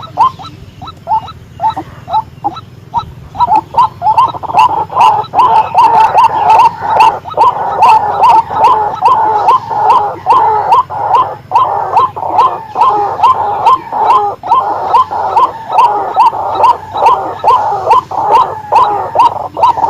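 White-breasted waterhen calling: a long run of loud, repeated croaking calls, sparse at first and then coming steadily at about three a second.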